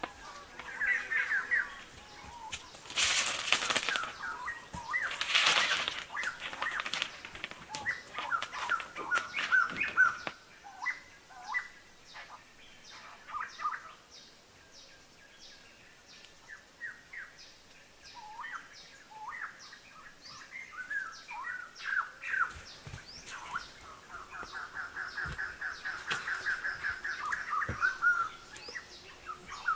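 Small birds chirping and calling, with a fast trill of repeated notes near the end. About three and five seconds in come two loud bursts of noise, each about a second long.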